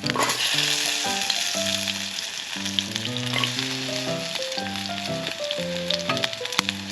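Food frying in a hot pan: a loud sizzle that starts suddenly at the very beginning, as if the food has just gone in, and then hisses steadily. Background music plays with a simple melody.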